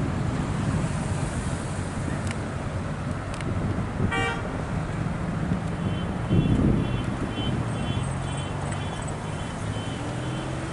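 Low rumble of an Airbus A340-600's four Rolls-Royce Trent 500 jet engines climbing away, mixed with road traffic. A short horn toot comes about four seconds in, and faint high chirps repeat in the second half.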